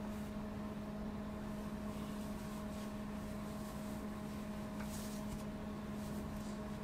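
Quiet room tone: a steady low hum with fainter, higher steady tones, and a few faint rustles as a knit beanie is pulled on over the head.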